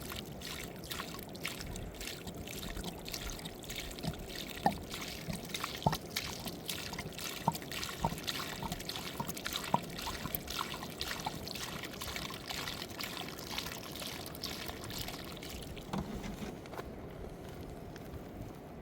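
Water trickling and splashing over a steady rush of flowing water, with many small sharp splashes. The loudest splashes come between about four and ten seconds in, and they thin out after about fifteen seconds.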